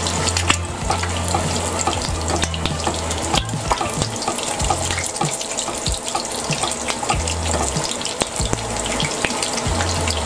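An egg frying in plenty of hot oil in a pan, the oil sizzling and crackling steadily, fried to a golden, crisp edge. A low hum comes and goes underneath.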